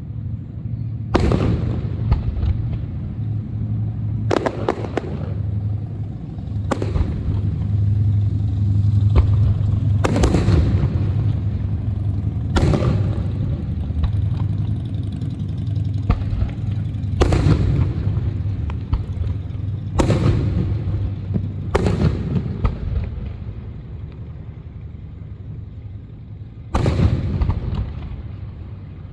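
Aerial fireworks going off: about nine sharp bangs at uneven intervals, some followed by crackle, over a continuous low rumble.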